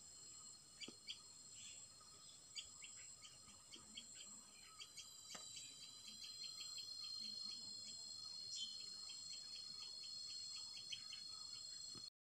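Faint background chirping: many short high chirps, several a second, over a steady high-pitched whine. It cuts off abruptly near the end.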